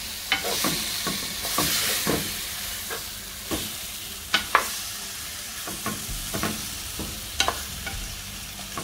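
A spatula stirring young jackfruit pieces through curry paste in a clay pot over heat: a steady sizzle with scraping and sharp knocks of the spatula against the pot.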